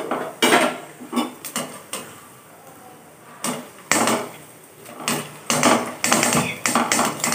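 Stainless-steel wire-mesh strainer knocking and clinking against a wok while cashews are fried in hot oil inside it. The knocks come irregularly, several close together near the end.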